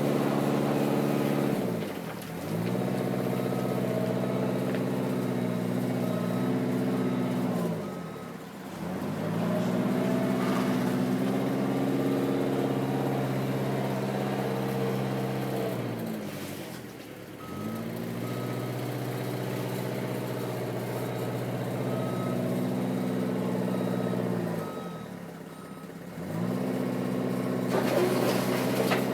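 Eurocomach E 235 K backhoe's diesel engine running at working revs, its pitch dropping sharply four times and climbing straight back, as under hydraulic load or throttling. In two stretches, during the high-rev runs, a backup alarm beeps at a steady rate of roughly one to two beeps a second.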